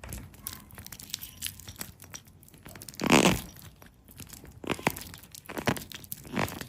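A protective sticker being peeled off a watch, with small handling clicks and one louder tearing rasp about three seconds in.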